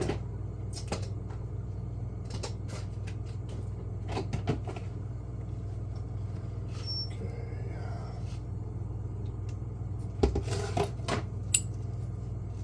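Scattered small clicks and clinks of carburetor parts being handled and taken apart, loudest in a cluster about ten seconds in, over a steady low hum.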